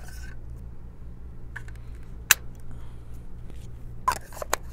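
Handling of a wireless microphone as it is opened up and switched on: a few sharp clicks, the loudest a little past two seconds in, with two more near the end, over a faint steady low hum.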